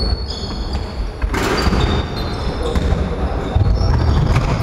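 A basketball bouncing on a wooden gym floor during play, a run of irregular thuds, with players' shouts over it.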